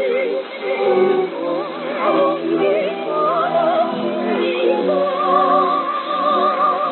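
Music from a Voice of Korea shortwave broadcast: a singer with heavy vibrato over held instrumental tones. It is heard as narrow-band shortwave audio, with nothing above about 4 kHz and no deep bass.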